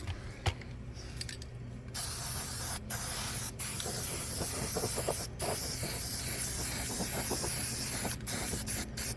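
Aerosol can of rust-killing paint spraying: a steady hiss that starts about two seconds in, breaks off briefly a few times, and ends in several short stop-start spurts.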